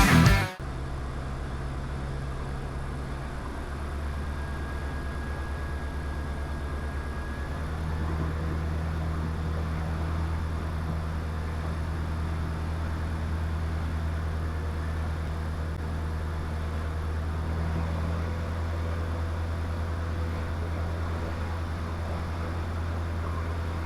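Diamond DA20 light aircraft's engine and propeller droning steadily, heard inside the cockpit. It steps up slightly in loudness about 4 and 8 seconds in. Music cuts off just at the start.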